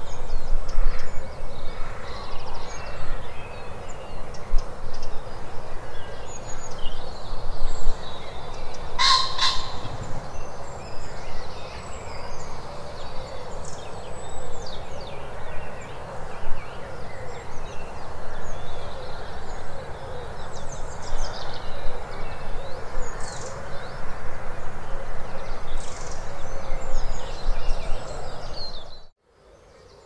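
Dawn chorus: many birds singing and calling at once over a steady background hiss. About nine seconds in, one bird gives a loud, harsh double call. The sound cuts off suddenly shortly before the end.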